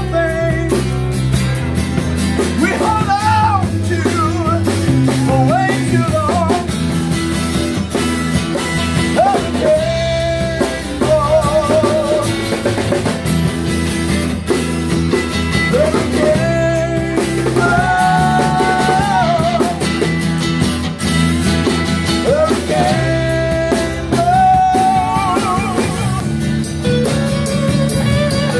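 Rock band playing live, with sung vocals over electric guitar, bass and drum kit, at a steady beat.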